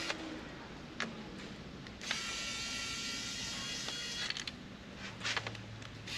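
Kaiweets ES20 electric screwdriver's small motor whirring, not terribly loud, as it turns out laptop screws; the steady whine starts about two seconds in and runs for about two seconds. A few light clicks of screws and bits come before and after it.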